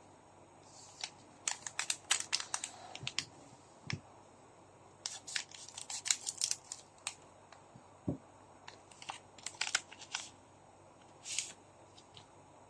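Trading card packs being handled and opened by hand: foil wrappers crinkling and tearing, with sharp clicks and snaps of the cards, in several short clusters.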